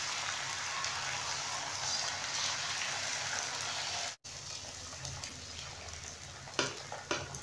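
Beaten egg sizzling as it is spread across a hot flat griddle pan with a metal ladle, beside frying shawarma chicken and vegetables. The sizzle breaks off about four seconds in and goes on quieter, with a couple of light clicks near the end.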